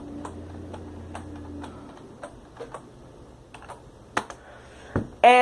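Scattered, irregular clicks of keys tapped on a computer keyboard, with a low steady hum for the first couple of seconds and a single thump near the end.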